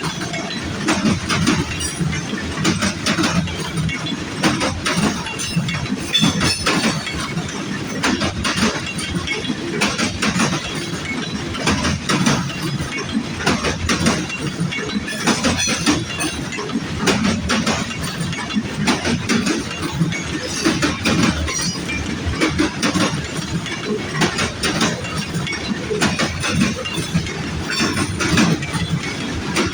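Freight cars of a grain train rolling past, their wheels clattering and knocking over the rail joints above a steady rumble.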